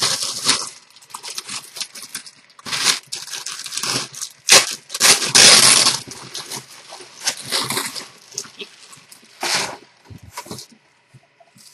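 Packaging rustling and crinkling in irregular bursts as a sweatshirt is unwrapped, loudest in a longer stretch about halfway through and dying away near the end.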